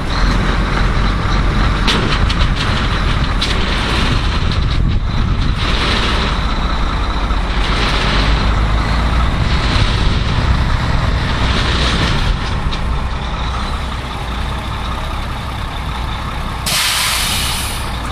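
Mack truck's diesel engine running at low revs, with short air hisses every couple of seconds and a louder, longer air-brake hiss near the end.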